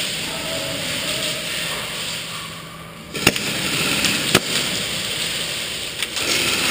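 Two sharp cracks about a second apart, with a fainter one near the end, from shots in an indoor skirmish game, over the steady din of a large hall.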